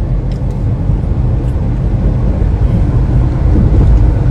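A vehicle on the move: a loud, steady low rumble of engine and road noise, with wind on the microphone.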